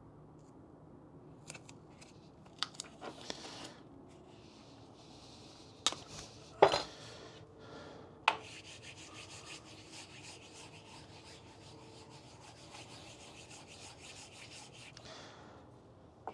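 Masking tape being rubbed down by hand onto the wood and cast-iron surfaces, a steady scratchy rubbing that lasts about six seconds in the second half. Before it come a few sharp clicks and knocks as the taped wooden block and casting are handled on the steel mill table; these knocks are the loudest sounds.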